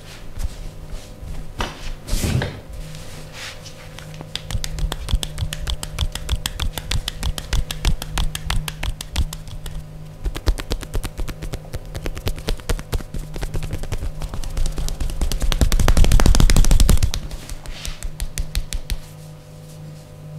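Rapid percussive massage: hands tapping and slapping on the body in a fast run of many impacts a second, building to a dense, loudest flurry about three quarters of the way through before easing off.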